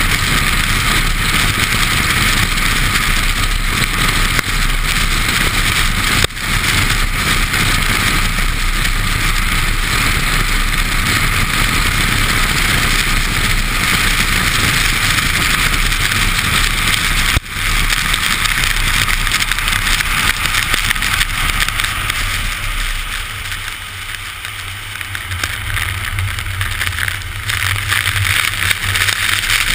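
Car driving fast on a wet race track, heard from beside the front wheel: a steady hiss of tyre spray and wind, with the engine running underneath. The hiss eases for a few seconds near the end, letting a low engine hum come through.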